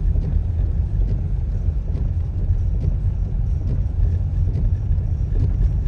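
Steady low rumble of a car being driven, heard from inside the cabin: engine and tyre noise on a snowy road.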